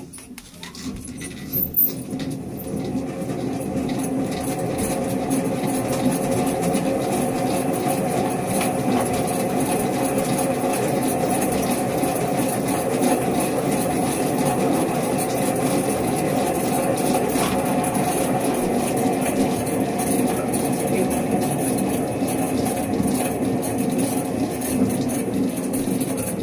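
Hand-cranked centrifugal honey extractor spinning honeycomb frames inside its steel drum, a steady whirring rumble. It builds up over the first few seconds as the drum gets up to speed, then runs evenly.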